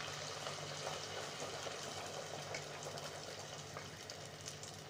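Hot oil sizzling and crackling around a rice-flour poori deep-frying in an aluminium pot, a dense fizz of fine pops that eases off a little near the end.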